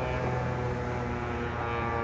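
ASC T-128 outdoor warning siren sounding a steady wail, several pitches held together as a chord.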